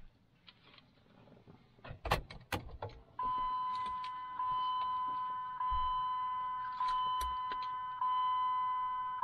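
A few sharp clicks and rattles, then the 2003 Dodge Durango's warning chime sounding: a steady ding struck again about once every second and a bit.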